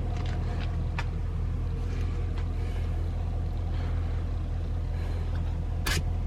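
1964 Chevrolet Impala engine idling steadily, with a sharp click about six seconds in.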